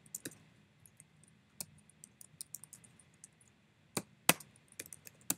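Typing on a computer keyboard: irregular, scattered key clicks, with two louder clicks about four seconds in.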